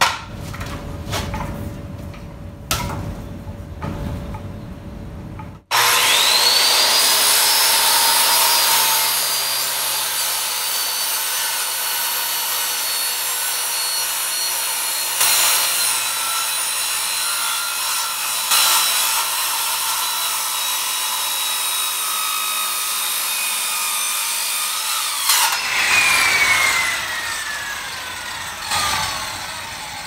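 Handheld circular saw: a few handling clicks, then about six seconds in the motor starts with a rising whine. It runs loud and steady for about twenty seconds, ripping a 10-degree bevel along a 2x2 board, then is switched off and winds down with a long falling whine.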